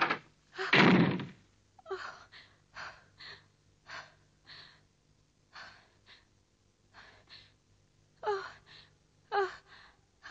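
A woman's frightened breathing: a run of short gasps and panting breaths, the last few voiced, like whimpers. A heavy thump about a second in is the loudest sound.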